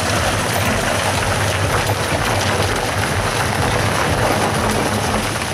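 Two old truck tyres being dragged by draft horses over a dirt track, giving a steady scraping, grinding rumble.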